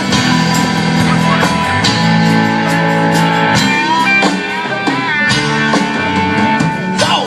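Live country-rock band playing an instrumental break between sung verses, guitar to the fore over drums.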